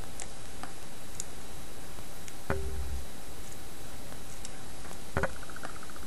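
Scattered small clicks and taps of small phone parts being handled and fitted back together, over a steady hiss. The sharpest click comes about two and a half seconds in, and a quick cluster of clicks with a short rattle comes near the end.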